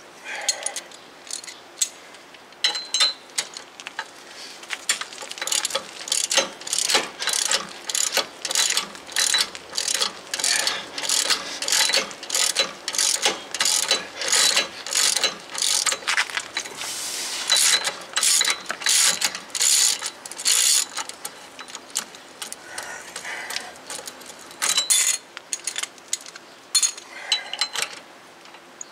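Hand ratchet wrench clicking in repeated strokes, about two a second, backing out a rear hub-assembly mounting bolt whose threads are rusty and tight. The strokes are sparser near the start and end.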